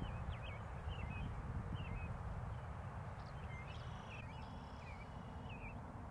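Small birds calling: scattered short chirps and whistles, with a cluster of buzzy trilled calls about four seconds in, over a steady low rumble.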